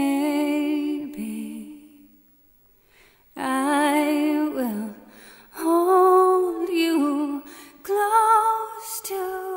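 A woman humming a lullaby tune unaccompanied, in four slow held phrases with a wavering pitch and a short pause after the first.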